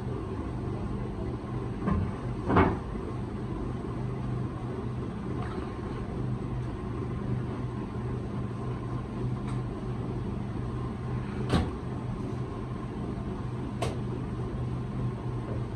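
A steady low machine hum runs throughout, with three short sharp knocks spread through it, the loudest near the start.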